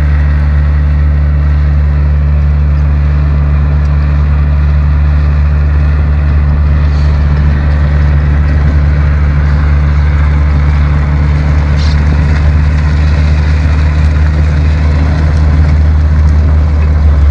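Motor vehicle engine running steadily with a constant low hum, pulling a towed mountainboard rider at an even speed.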